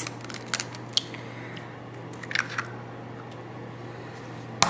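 Eggs being cracked into a bowl of flour: a few small crackles and clicks of eggshell breaking and being pulled apart, with a sharper click near the end, over a faint steady hum.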